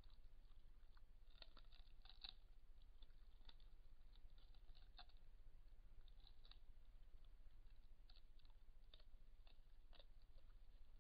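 Near silence through a trail camera's microphone: a steady low hum, with faint, irregular small clicks and crunches from a grizzly bear, sometimes several in quick succession.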